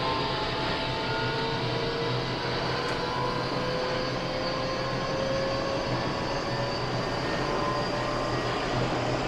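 Eidan 8000 series armature-chopper electric train heard from inside the car, running with a steady rumble. Several whining tones slowly rise in pitch as it gathers speed. This car is a so-called 'jet sound' car, known for an abnormal jet-like whine.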